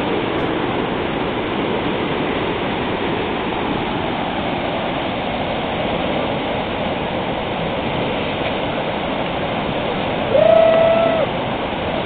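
Steady rush of whitewater rapids. About ten and a half seconds in, a short held shout rises above the water.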